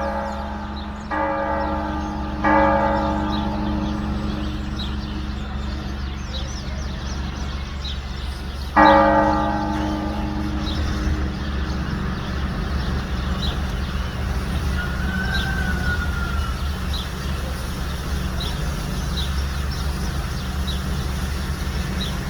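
Church bell struck three times: two strokes about a second and a half apart, then a third some six seconds later. Each stroke rings out and slowly fades over a steady low hum.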